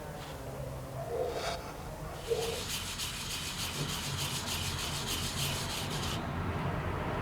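Rhythmic hand scraping of a metal coin being abraded: quick rasping strokes, several a second, starting about two seconds in and stopping abruptly about a second before the end.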